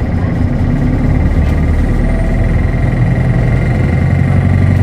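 Interior running sound of a Hino Blue Ribbon Hybrid city bus under way: a steady low engine drone that grows slightly stronger toward the end, with a thin high whine held throughout.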